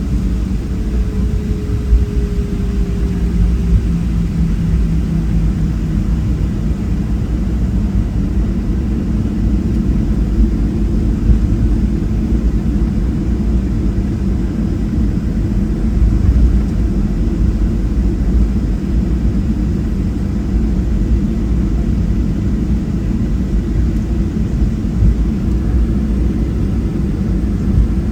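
Boeing 737-700 taxiing, heard inside the cabin: a steady low rumble from its CFM56-7B engines at taxi power and the airframe rolling. A faint tone slides slightly downward in the first few seconds.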